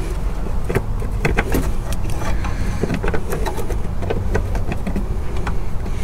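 Screws being worked loose from the plastic housing of a Toro push mower: scattered small clicks and scrapes at irregular intervals, over a steady low rumble.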